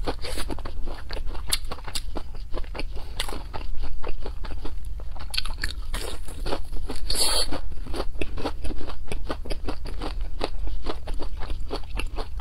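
Crisp breaded fried cutlet bitten and chewed: dense, rapid crunching, with one louder crunch about seven seconds in.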